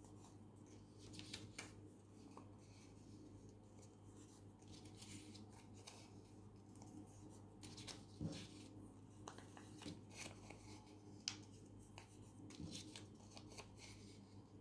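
Faint rustling and soft clicks of small paper circles being folded in half and creased by hand, over a low steady hum.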